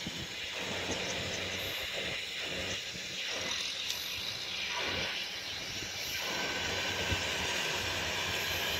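Kubota M6040SU tractor's diesel engine running steadily at low speed as it drives across rice-field stubble, under a rushing hiss that swells and fades about once a second.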